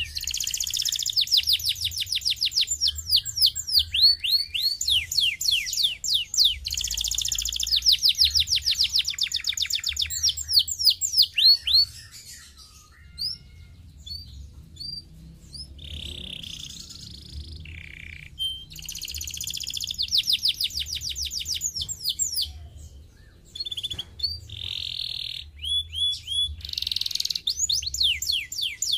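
Domestic canary singing: long, fast trills of quickly repeated downward-sweeping notes, broken by shorter varied phrases and a brief lull about halfway through.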